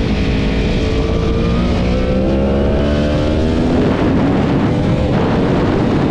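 Yamaha R1's crossplane inline-four engine pulling hard under acceleration, its pitch climbing steadily and then breaking off about four seconds in as it shifts up.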